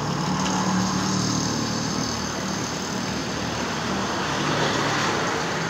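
Honda CBR1000RR Fireblade's inline-four engine idling steadily through an aftermarket SC Project exhaust, swelling a little near the end.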